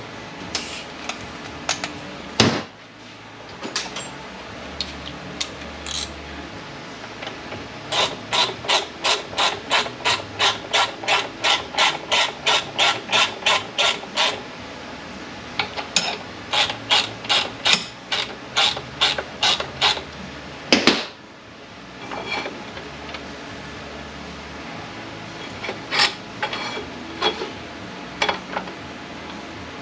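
Hand ratchet wrench turning bolts: two long runs of quick, even clicking at about three clicks a second, with scattered single clicks and two loud metallic clunks, one near the start and one in the middle.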